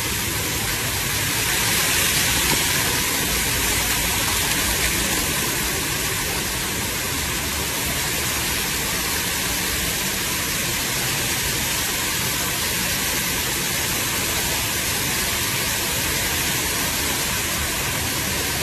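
Large volume of water pouring and raining down from the ceiling into a flooding apartment, a steady, unbroken rushing splash.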